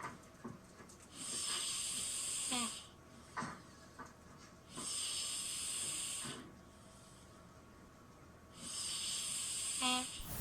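Snoring: three long, hissing breaths of about one and a half seconds each, coming roughly every four seconds. A brief squeaky sound comes near the end.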